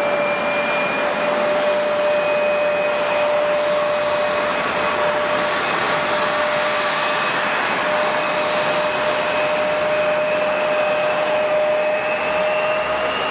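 Airliner jet engines running: a steady rushing noise with a whine whose pitch creeps slowly upward, and a thin high tone that glides upward midway through.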